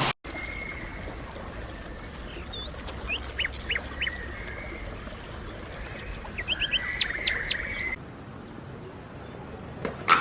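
Small birds chirping: short, quick whistled notes in two brief flurries.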